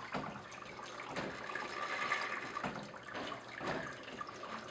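Water trickling and splashing through a homemade water clock, whose pumped water runs through brass pipes to turn a clear water wheel that drives the gear train. A steady trickle with irregular louder splashes about once a second.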